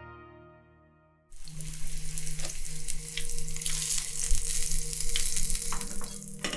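Soft music fading out to silence, then, a little over a second in, a steady sizzling hiss with scattered crackles starts abruptly.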